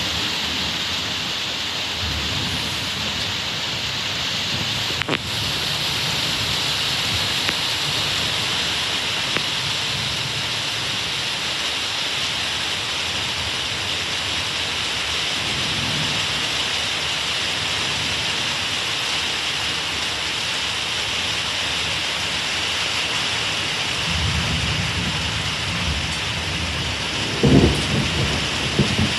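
Steady heavy rain with low rolls of thunder that come and go, the loudest thunder rumbling near the end.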